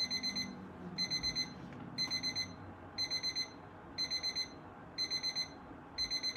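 Electronic alarm beeping in quick groups of four short high beeps, one group about every second, repeating steadily.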